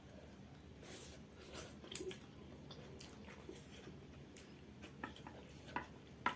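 Close-up chewing of soft instant noodles: quiet wet mouth sounds with scattered short smacks and clicks, which come in clusters about two seconds in and near the end.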